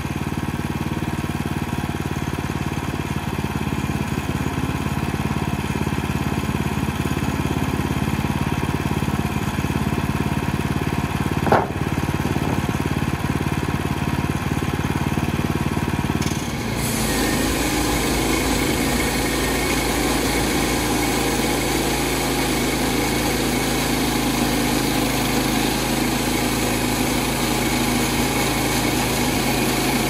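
Woodland Mills portable band sawmill's small gasoline engine running steadily, then throttled up about halfway through to run at high speed as the sawhead is pushed along the log. A brief squeak sounds about a third of the way in.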